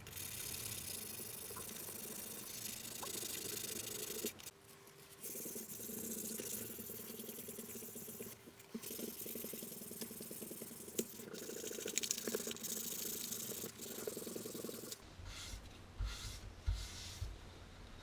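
Steady hissing spray with a low hum under it, stopping briefly a few times and giving way to a few knocks and clicks in the last few seconds.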